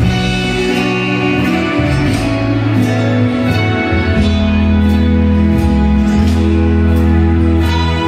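Slow waltz music for ballroom dancing: held, flowing chords with a soft beat about three times every two seconds.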